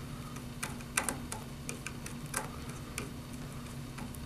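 Small screwdriver turning the clamp screw of a pluggable terminal block to fasten a wire: irregular light clicks and ticks. A steady low hum runs underneath.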